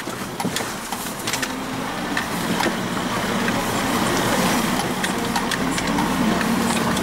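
Land Rover Defender 90 engine running steadily at low speed, heard from inside the cab and getting slightly louder over the seconds. Scattered clicks and knocks come from the body rattling over rough, rocky ground.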